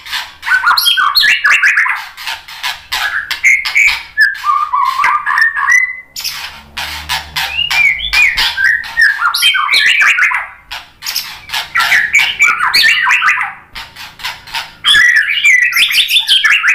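White-rumped shama (murai batu) singing a fast, varied song of sharp clicking notes mixed with warbled phrases, with short breaks about six and fourteen seconds in.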